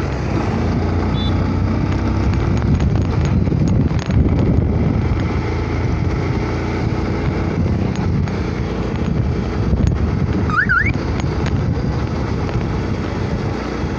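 Motorcycle engine running at road speed while riding, mixed with wind and road noise. A short rising chirp is heard about ten and a half seconds in.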